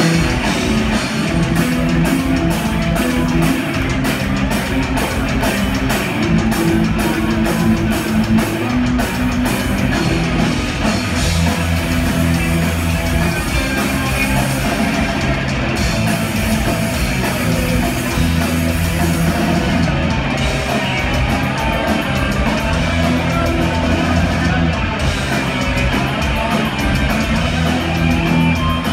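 Punk rock band playing live and loudly: electric guitars, bass and a drum kit through a concert PA, heard from the audience in the hall.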